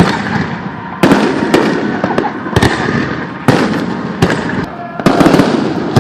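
Aerial fireworks bursting overhead, about seven sharp booms in quick succession, each trailing off in a rumbling echo.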